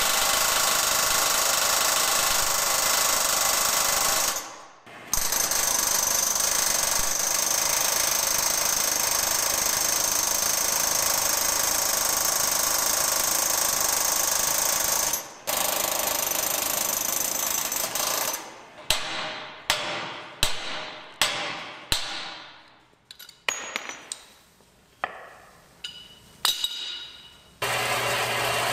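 A power impact tool hammering rapidly and continuously on metal, stopping briefly twice. It then gives way to about a dozen separate hammer blows, each ringing out.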